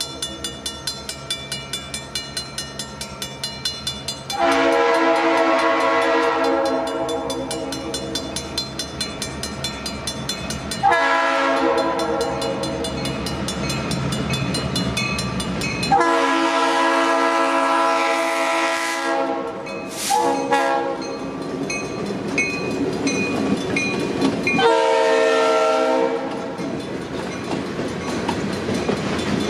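Safetran mechanical crossing bell ringing steadily, about four strokes a second, while a diesel freight locomotive's horn blows several long blasts for the crossing. The train then rolls over the crossing, its freight cars' wheels clattering on the rail joints under the bell.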